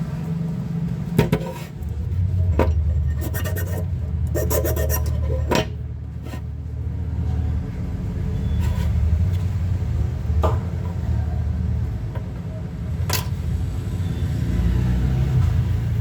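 Scattered clicks and scraping from small parts being handled and worked on, a cluster in the first few seconds and single clicks later, over a steady low hum.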